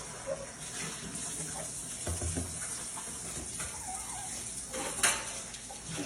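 Liquid running steadily, with a few clinks of dishes, a low thump about two seconds in and a sharp click about five seconds in.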